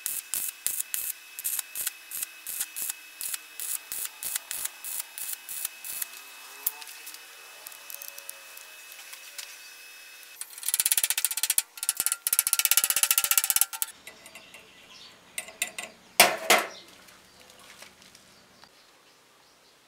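Stick welding arc on thin steel tube, crackling in short regular pulses about two a second. Later a harsher, louder stretch of steady noise lasts a few seconds, followed by one loud burst.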